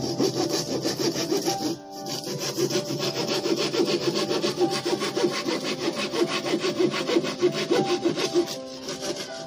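Hand saw cutting through a thin plywood sheet in rapid back-and-forth strokes, with a brief pause about two seconds in, stopping near the end.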